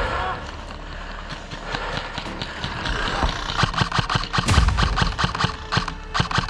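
Airsoft gunfire: from about halfway through, a rapid run of sharp snapping shots, several a second, with one heavier thump in the middle of the run.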